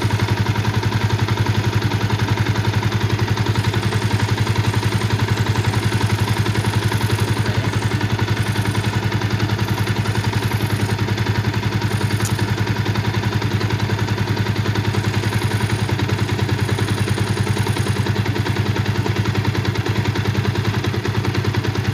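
Yamaha Vixion's single-cylinder four-stroke engine idling steadily with a clattering tick, the noisy ('brisik', 'kretek-tek') engine the owner wants to cure.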